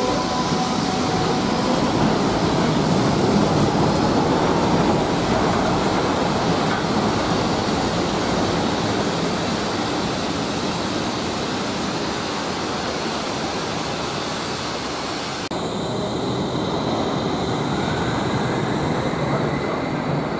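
Wuppertal Schwebebahn suspension-railway cars running along the overhead steel track: a steady rumble of wheels on the rail, loudest in the first few seconds. About three-quarters through the sound changes abruptly, and a faint high whine joins the rumble.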